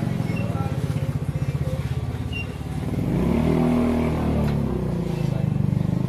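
A small engine running with a fast, even pulsing beat, its pitch rising and falling briefly about three seconds in.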